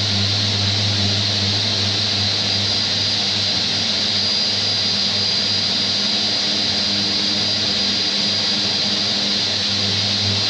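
Mirka electric orbital sander running steadily as it rubs down the paint on a door, a low hum under a high whine and the hiss of the abrasive.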